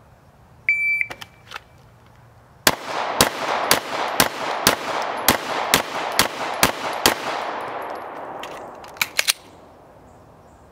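A shot timer beeps once. About two seconds later a pistol fires ten rapid shots about half a second apart, each with a short echo, with a slightly longer gap after the fifth as the shooter switches to the second target. A few clicks of the emergency magazine change follow after the gun runs dry.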